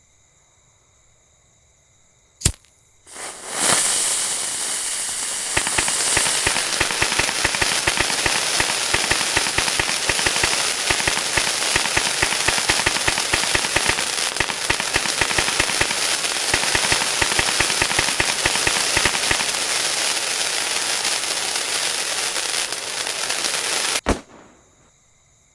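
Novelty tank firework going off: a sharp crack, then a loud hiss, then a long run of dense, rapid crackling pops lasting about twenty seconds, ending in one last crack before it stops suddenly.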